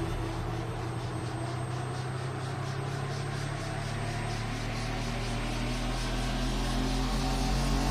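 Background music: a quieter passage of held low notes under a steady hiss that grows a little louder toward the end.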